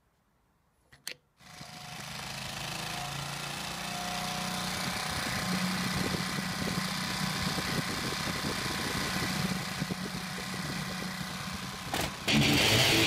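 Hyundai HD-1250 generator's single-cylinder 154F engine coming in about a second and a half in and running steadily with its choke fully open, the sign that its stalling with the choke off is cured. A single metal click comes just before it, and music starts near the end.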